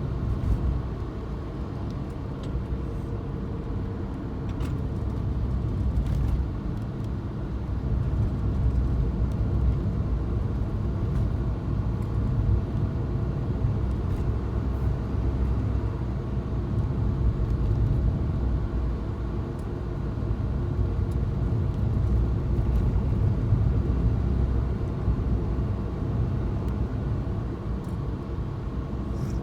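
Suzuki Jimny driving: steady low engine and road rumble with no sharp events.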